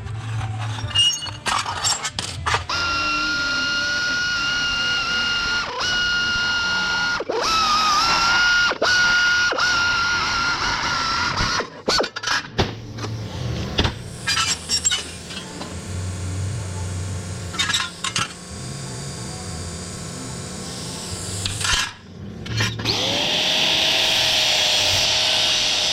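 Electric power tool running during rust-repair work on sheet metal: a steady high whine for several seconds, then knocks and clatter of handling, then a motor spinning up and running steadily near the end.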